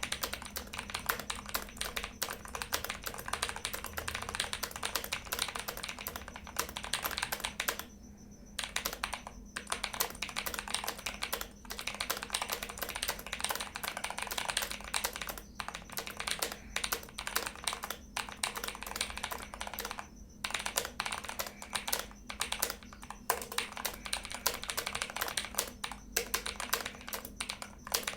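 HyperX Alloy Elite 2 mechanical keyboard with tactile HyperX Aqua switches being typed on fast, a dense run of key clicks with a few brief pauses.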